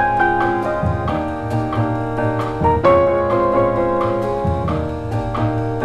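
Soul-jazz piano trio recording: piano playing full chords and melody over upright bass and drums, with regular cymbal strikes.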